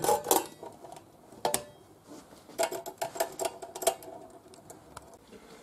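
Stainless steel flan mold's lid being fastened: the clip latches snap shut and metal clinks on metal. A few sharp clicks near the start and about a second and a half in, then a cluster of clinks with a brief ring from about two and a half to four seconds in.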